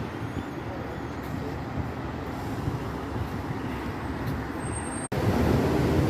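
Steady low rumble of a vehicle, with a brief break about five seconds in, after which it is a little louder.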